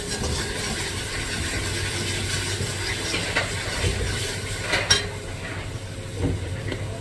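Curry mixture in a hot pot sizzling and hissing as water goes in, with one sharp knock about five seconds in.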